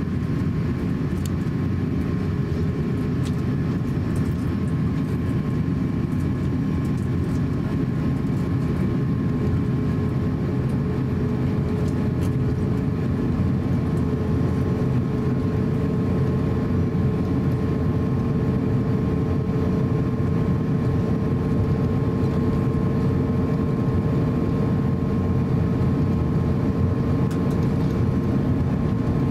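Inside the cabin of an Airbus A350-900 taxiing: its Rolls-Royce Trent XWB engines running at low taxi power, a steady hum and low rumble with a held tone that edges slightly higher around the middle.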